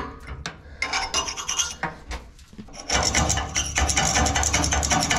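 Small hand chisel scraping welding spatter off a bare steel roll bar. Scattered scrapes and clicks at first, then a louder, denser run of scraping about three seconds in.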